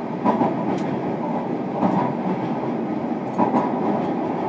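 Onboard running sound of a JR Kyushu 305 series EMU, heard inside motor car MoHa 305-104: a steady rolling rumble of the train under way, with wheels clacking over rail joints three times, about every second and a half.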